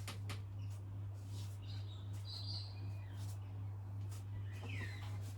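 Birds chirping and calling, with a short gliding call near the end, over a steady low hum.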